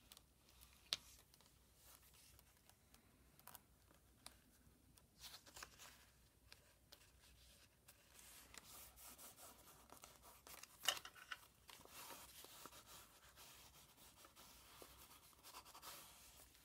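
Faint paper-crafting handling: paper and a sticker being rubbed and pressed down onto a journal page, with scattered small clicks and taps. The sharpest tick comes about a second in and another near the middle, and the rubbing is steadier in the second half.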